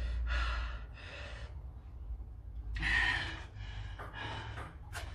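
A woman breathing hard, several loud gasping breaths in and out, with a low rumble under the first few seconds: she is out of breath from doing six-count burpees.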